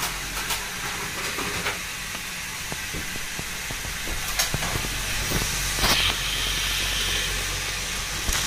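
Battery-powered Plarail toy trains running on plastic track: a steady motor and wheel noise with a few sharp plastic clicks and knocks, the loudest about four and six seconds in.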